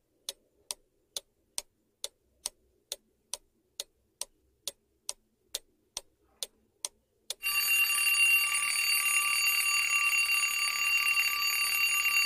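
Clock ticking at about two ticks a second, then an alarm clock ringing steadily from about seven seconds in: a countdown-timer sound effect signalling that the answer time is up.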